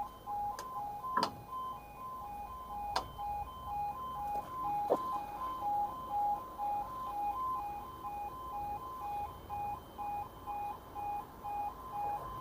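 UK level crossing yodel alarm: an electronic warning sounder alternating evenly between two tones, sounding steadily while the barriers are down for an approaching train. A few faint knocks can be heard in the first five seconds.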